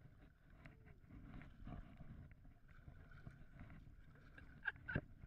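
Faint water sounds of a kayak being paddled: paddle strokes splashing and water lapping along the plastic hull, with wind rumbling on the microphone. Two sharp knocks come close together near the end.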